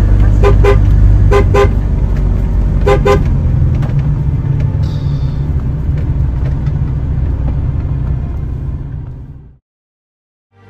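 Vehicle horn giving three short double toots in the first three seconds, over the steady low road and engine rumble inside a moving vehicle. The rumble fades out near the end.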